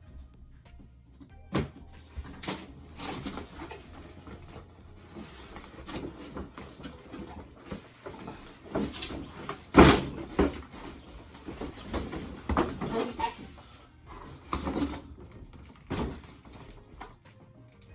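A large cardboard-and-plastic doll box being handled and opened: irregular rustling, scraping and knocks, with one sharp, loud knock about ten seconds in.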